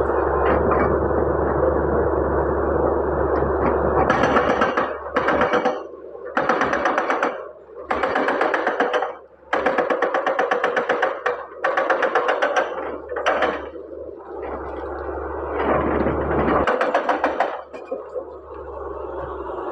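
Excavator running steadily, then about four seconds in breaking into a dozen or so bursts of rapid rattling clatter with short pauses between.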